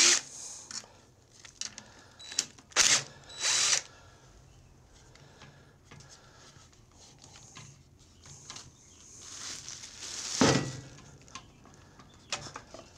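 Cordless power tool running in short bursts, twice about three seconds in, spinning off the 10 mm nuts that hold the air-cleaner base on a small engine. About ten seconds in, a rising rustle ends in a thump.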